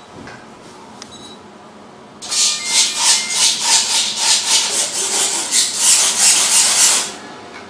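Radio-controlled model's servos buzzing in quick repeated sweeps, about four a second, starting about two seconds in and stopping near the end. The servos are being driven from the transmitter sticks to check that the model responds.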